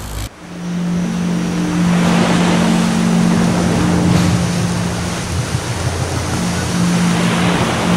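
Surf washing onto a sandy beach, a loud steady rush of wave noise that builds over the first second, with a steady low hum beneath it.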